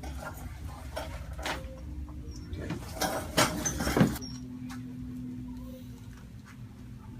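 Rustling and sharp clicks as a patient is handled on a chiropractic table, with a dense cluster about three to four seconds in that holds two louder snaps. A steady low hum follows.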